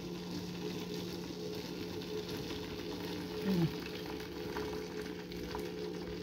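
Cooking water trickling and splashing as it is drained from a tilted pot of boiled pumpkin into a plastic strainer in a steel sink, a steady hiss. A steady low hum runs underneath, and a brief falling tone sounds about three and a half seconds in.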